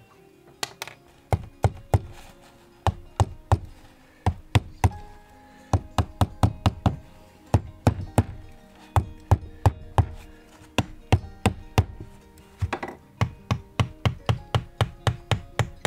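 Repeated sharp knocks of a small mallet striking the rusty metal housing of a Lewmar windlass gearbox, tapping it loose so it can slide off the motor shaft. The knocks come at irregular intervals and quicken near the end into a regular run of about three a second.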